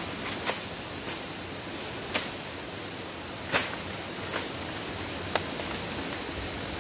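Footsteps crunching through dry leaves and undergrowth as a person climbs a brushy slope, with about six sharp snaps and swishes of stems and leaves over a steady hiss.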